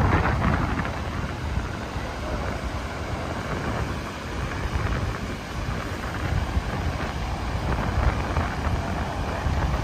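Wind buffeting the microphone in a steady, uneven rumble, over the continuous wash of ocean surf.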